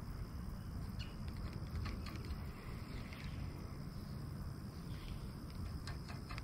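Spinning reel being slowly cranked, giving faint scattered clicks, over a low steady rumble of wind on the microphone and a thin steady high tone.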